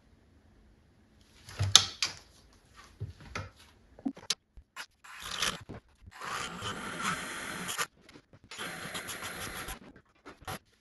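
Scattered clicks and scrapes of a metal DRO scale being handled against a mini lathe's bed. Then a small handheld cordless power tool runs in two bursts, one of about two seconds and one of just over a second, working at the scale's mounting point.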